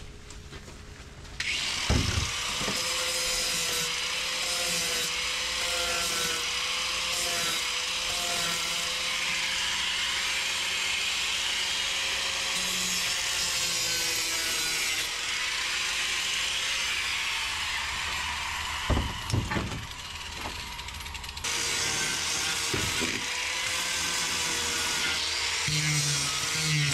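Electric power sander grinding cured epoxy squeeze-out off the inside of a catamaran canoe hull. It starts about a second in and runs steadily, its motor note wavering as the disc bears on the surface. There are a few knocks and a short dip about 19 seconds in before the sanding picks up again.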